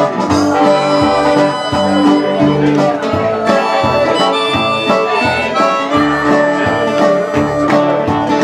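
Live band playing the instrumental introduction of a country-folk song: a harmonica melody over strummed guitar and a walking bass line with a steady beat.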